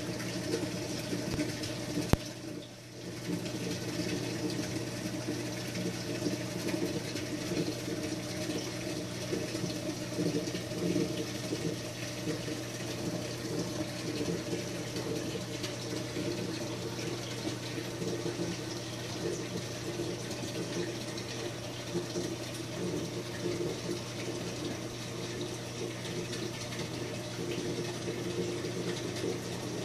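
Reef aquarium's water circulation: steady running, splashing water over a low steady hum, typical of the tank's pump. A single sharp click about two seconds in.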